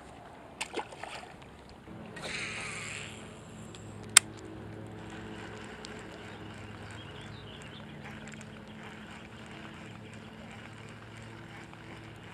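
A motorboat engine drones steadily from about two seconds in. Just before it there is a brief rushing swish, and about four seconds in a single sharp click sounds, the loudest moment.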